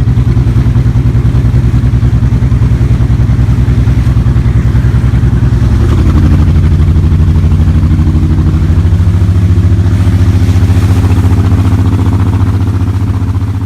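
An engine running with a steady low, pulsing note that shifts in pitch about six seconds in, then begins to fade near the end.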